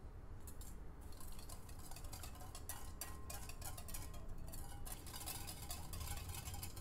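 Wire balloon whisk beating eggs and sugar in a glass bowl: rapid, continuous clinking of the wires against the glass, starting about half a second in.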